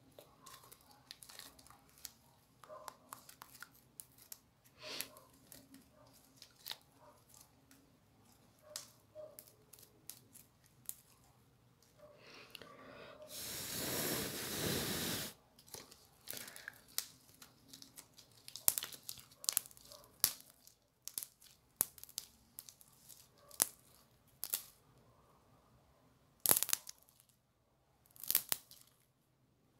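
Hands stretching, squeezing and tearing a yellow slime, with many short sticky crackles and pops. About halfway through there is a louder rush of noise lasting about two seconds.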